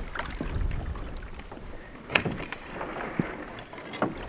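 Canoe being launched and pushed off through shore ice: scraping and jostling of the hull and paddles, with a sharp knock about two seconds in and a couple of smaller knocks later.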